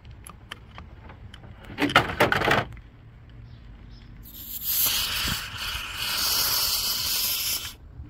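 Refrigerant mixed with trapped air and a little oil hissing out of the A/C manifold's yellow charging-hose Schrader valve as its core is pressed: the hoses being purged of air before charging. A short burst comes about two seconds in, then a longer steady hiss from about four seconds in that cuts off just before the end.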